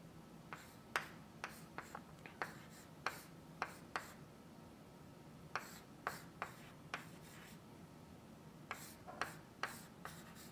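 Chalk tapping and scratching on a blackboard as an equation is written out: short, irregular strokes in three clusters with brief pauses between them.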